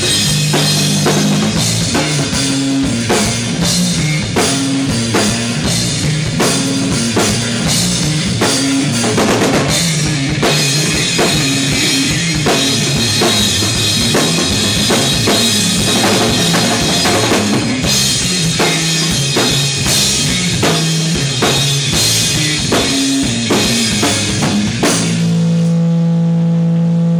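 Live rock band playing an instrumental passage: a drum kit pounds out a busy beat under moving bass guitar notes. About two seconds before the end the drums stop and one low note is left ringing, with a wavering higher tone above it.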